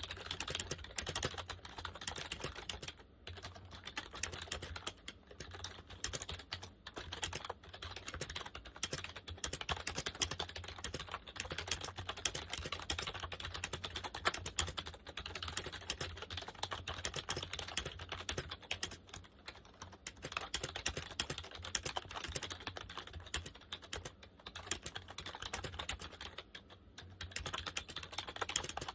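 Continuous fast typing on a Compaq KB-3923 rubber dome keyboard: a dense run of key clicks, with brief pauses a few times.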